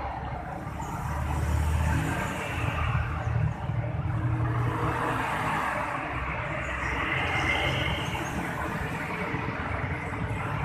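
Car engine running with its piston-type air-conditioning compressor making a steady, low growling noise (ngorok), a noise one cause of which is a loose ball or metal part inside the compressor.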